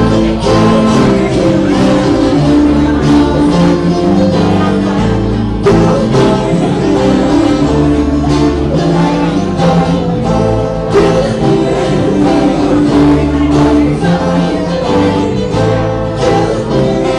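A band's song: singing over guitar and bass.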